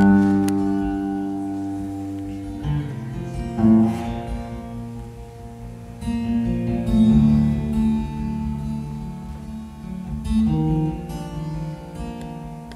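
Solo acoustic guitar playing an instrumental intro: chords struck every one to three seconds and left to ring out.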